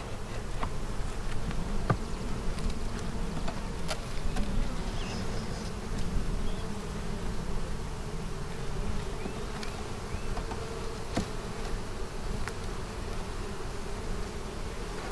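Honeybees buzzing in a steady hum over an opened hive. A few short sharp clicks come through it, from a metal hive tool prying at the wooden frames.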